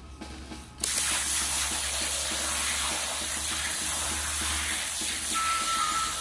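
Garden hose shower nozzle spraying water onto angelica-tree cuttings in a metal pot: a steady hiss of spray that starts suddenly about a second in.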